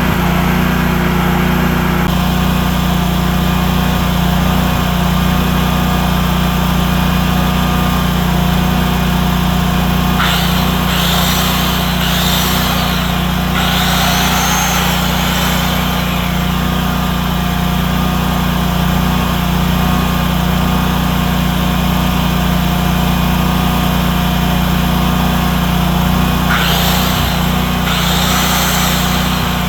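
The 32 hp V-twin engine of a 15 kW Centurion (Generac-built) standby generator running at a steady speed. A louder, hissing, higher-pitched sound comes in over it three times: about ten seconds in, again just after, and near the end.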